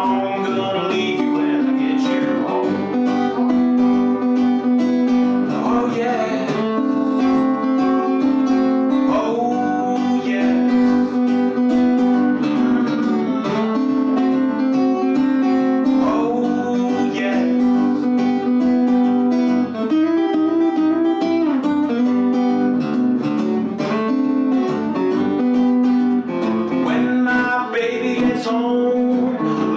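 Acoustic blues guitar played live in an instrumental break: a steady repeating bass note under picked notes, with rising glides in pitch every few seconds.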